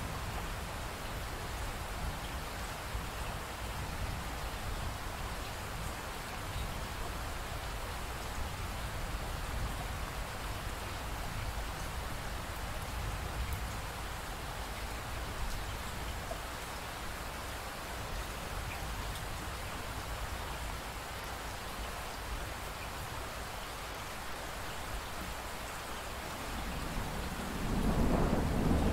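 Steady rain with a low rumble underneath. Near the end a roll of thunder builds up and grows louder.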